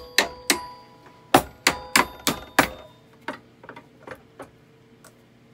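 Small hammer tapping a silverware fork handle held in a bender press, curling the handle over on itself. Each strike is a sharp metal-on-metal tap with a brief ring. About eight quick, firm taps come in the first three seconds, followed by a few lighter ones.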